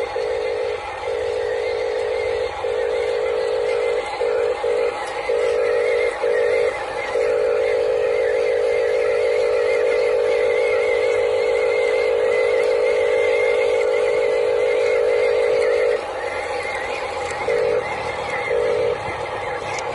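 Huina RC dump truck's electric drive motor whining through its gearbox. It starts and stops in short spells, then runs steadily for several seconds in the middle before going back to short spells near the end.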